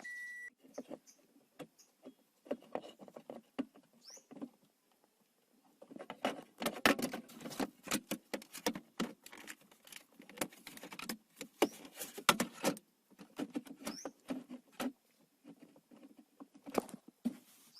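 Hands working a small plastic bulb socket into the gear shifter's indicator housing: irregular clicks, taps and scraping of plastic, busiest from about six seconds in to about thirteen seconds.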